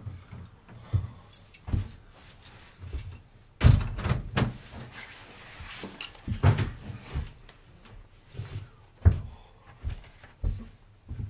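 A string of household knocks and thuds: a door shutting, footsteps along a hallway and a school bag set down on the floor. The loudest knock comes about four seconds in.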